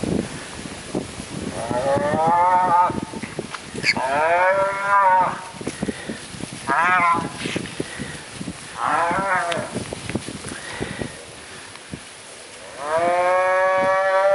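Scottish Highland cattle mooing, five long calls with the last the longest, and short low noises between them. The herd is stirred up by Berkshire piglets crowding a calf.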